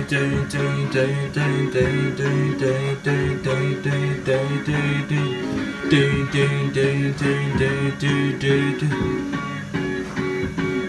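Instrumental music from a coin-operated kiddie ride's loudspeaker: a plucked-guitar passage over a steady repeating bass beat.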